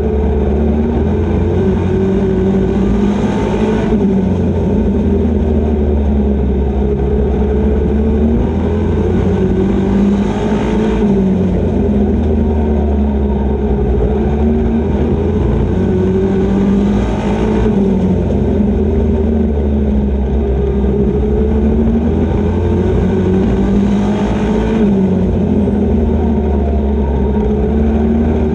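Super Pro race truck's engine heard from inside the cockpit at racing speed, running hard and steady. Its note dips and climbs back about every seven seconds as the driver comes off and back onto the throttle through the turns.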